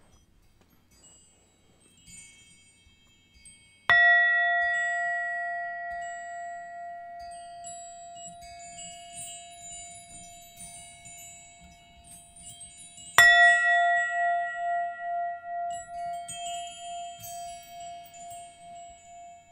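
A bell struck twice, about four seconds in and again near the middle, each strike ringing on one clear steady note that fades slowly with a wavering pulse. Faint, high wind chimes tinkle throughout.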